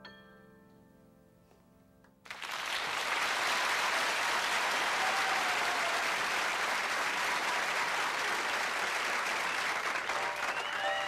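The last soft grand-piano chord of a ballad fades away. About two seconds in, an audience breaks suddenly into loud, steady applause that carries on to the end.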